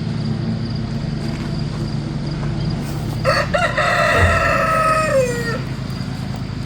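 A rooster crowing once, about three seconds in: a few short starting notes, then a long held note that drops in pitch at the end. A steady low hum runs underneath.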